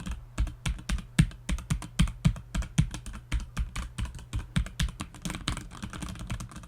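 T-Dagger Bora TGK313 mechanical keyboard with red linear switches being typed on at a quick, steady pace, about five keystrokes a second: a sound test of the switches.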